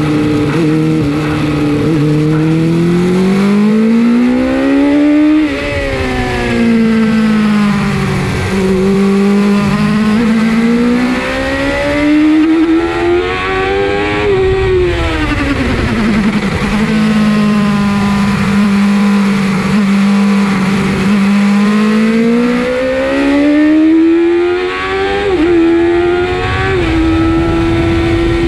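Suzuki GSX-R 750 SRAD's inline-four engine heard from the rider's seat, its note climbing under acceleration and dropping back when rolled off for corners, twice falling sharply and later stepping through quick gear changes, over a steady rush of wind.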